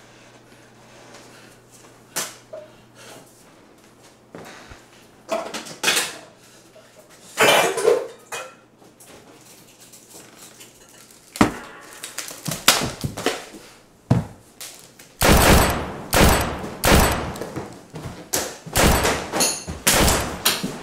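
A run of knocks, bangs and clattering, a few scattered ones at first, then coming thick and fast in the last third.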